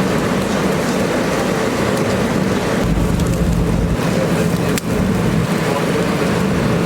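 Steady rumbling roar of a cooking flame with a sizzling hiss from the grill. There is a single sharp click about five seconds in.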